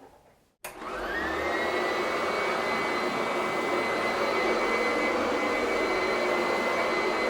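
Antique vacuum cleaner switched on with a click after a moment of silence, its motor whine rising for about a second and then running steadily.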